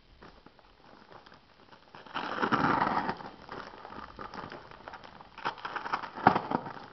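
Package wrapping crinkling and crackling as it is handled and cut open with a utility knife, with a louder stretch of rustling about two seconds in and a run of sharp cracks and clicks near the end.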